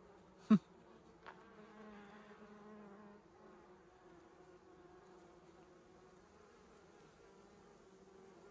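Bees buzzing steadily, a hum at several pitches, with a sharp loud tap about half a second in and a fainter one shortly after.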